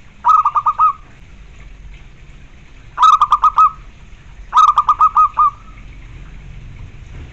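Zebra dove (perkutut) cooing: three short phrases of rapid, evenly spaced staccato coos, each of five to seven quick notes, the first just after the start, the next about three seconds in and the last near five seconds.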